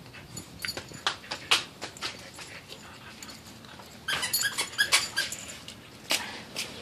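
Two huskies play-fighting, making short whines and whimpers in scattered bursts, the busiest about four to five seconds in.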